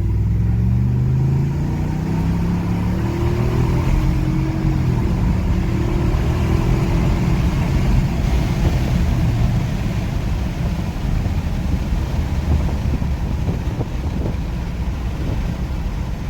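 Ford 7.3-litre gas V8 of an F-250 Super Duty accelerating hard, its engine note rising over the first few seconds, then settling into steady engine and road noise as speed builds.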